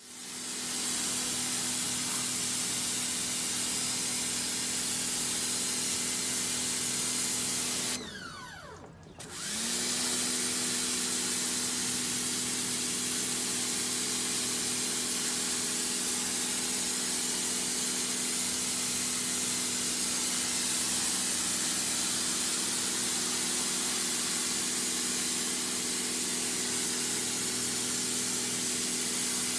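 Pressure washer spraying steadily: a loud hiss over the steady hum of its motor and pump. About eight seconds in, the spray and hum stop for about a second, then start again with a rising hum.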